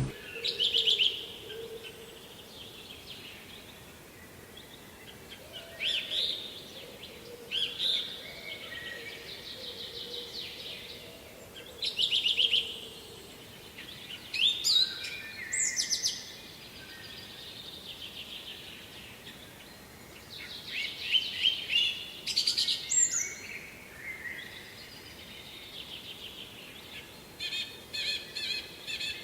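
Songbirds singing in short, quick phrases of chirps, repeating every few seconds, over a faint steady background hiss.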